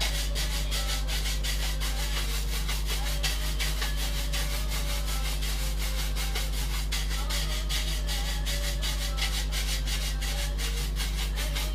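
Stiff bristle brush buffing a carved wooden panel to a shine, scrubbing in rapid, even back-and-forth strokes. A steady low electrical hum runs underneath.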